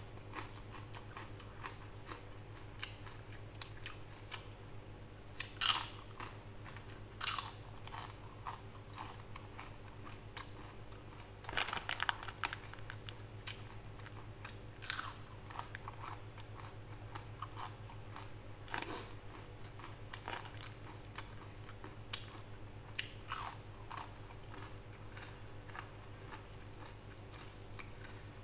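Close-up eating sounds: scattered crunchy bites and chewing of raw cucumber and food eaten by hand, with a busier run of crunches about twelve seconds in. A steady low hum runs underneath.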